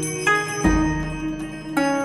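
Background music of plucked string notes that ring and fade over a low held bass note, a new bass note entering about two-thirds of a second in.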